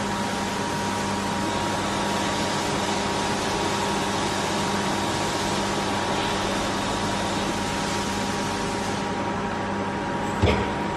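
Miyano BNJ 51SY2 CNC turning center running under power: a steady machine hum and hiss with a few constant tones, and a short clunk near the end.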